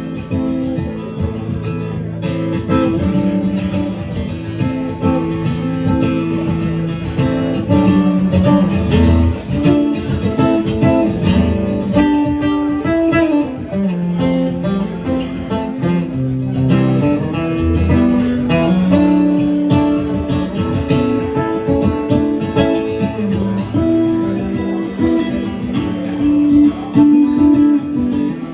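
Guitar playing an instrumental break in a song, strummed and picked, with no singing.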